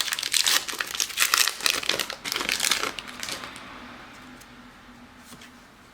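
Foil wrapper of a Pokémon booster pack crinkling as it is opened by hand. It gives dense crackling for about three seconds, then dies away to a few faint rustles.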